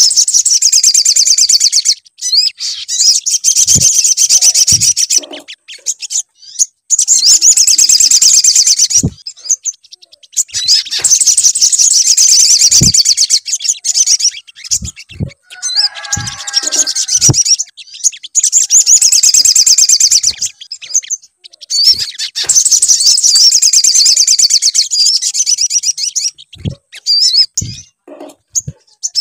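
Sogon bird song played as a lure recording: long runs of rapid, high-pitched twittering lasting a few seconds each, broken by short pauses. A brief lower warbling phrase comes about halfway through, and a few soft clicks fall between phrases.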